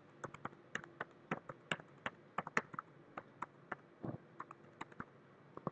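Computer keyboard being typed on: a quick, uneven run of separate key clicks, a few a second.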